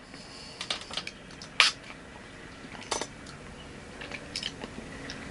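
Quiet mouth noises and a few short, sharp clicks of someone tasting liquid candy.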